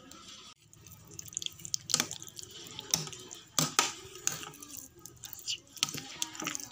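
Water dripping and splashing in irregular sharp clicks, with a few louder ones around the middle.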